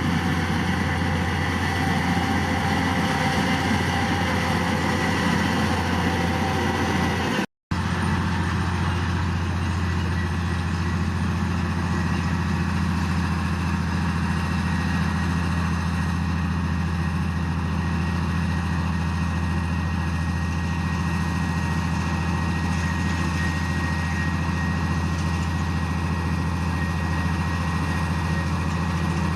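Heavy diesel machinery engine running steadily with a deep low drone. It drops out for a split second about seven and a half seconds in, then carries on with a slightly different tone.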